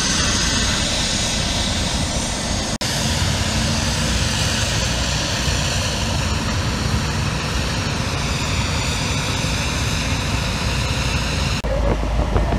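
Fire engine and aerial ladder platform engines running their pumps in a steady, loud drone. The sound dips briefly about three seconds in, and near the end it turns to a deeper rumble.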